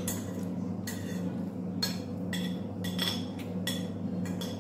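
Metal spoon clinking and scraping against a ceramic bowl during a meal: a run of about ten irregular light clinks, some with a short ring, over a steady low hum.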